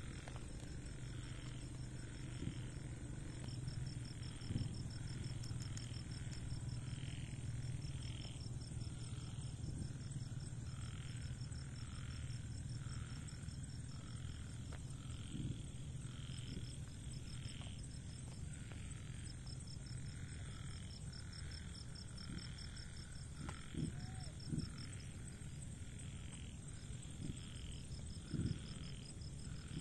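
Night chorus of crickets and frogs: a high, fast trill in long stretches over a lower call pulsing about every three quarters of a second, with a steady low hum beneath. A few soft knocks stand out, twice near the end.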